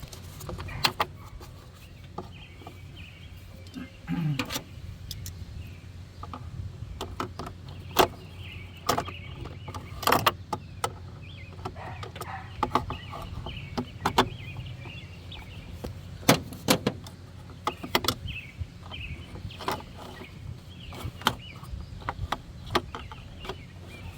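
Scattered sharp metallic clicks and knocks of a socket and ratchet working at a stubborn ignition-coil mounting screw, which turns without backing out, over a steady low hum.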